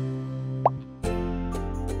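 Background music with one short rising 'bloop' sound effect, a quick upward glide in pitch, less than a second in. The music thins for a moment around the effect, then returns fuller.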